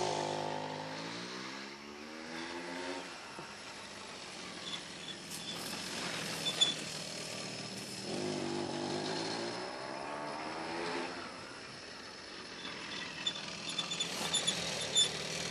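Tomos moped's small two-stroke engine pulling away, its pitch climbing over the first few seconds, then revving up and dropping again about eight seconds in. A few short high ticks come in between and near the end.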